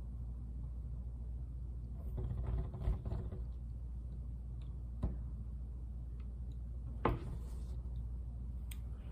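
Handling noises: a short rustle about two seconds in, then two sharp knocks, about five and seven seconds in, over a steady low hum.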